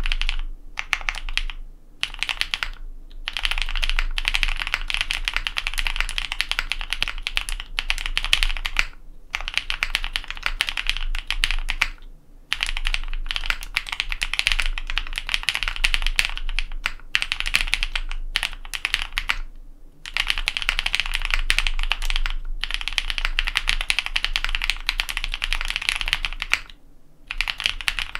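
Fast typing on a custom mechanical keyboard with an aluminium plate and lubed linear switches (Cherry MX Black housings with Kailh Red stems) under GMK keycaps: quick strings of key clacks in runs of several seconds, broken by short pauses.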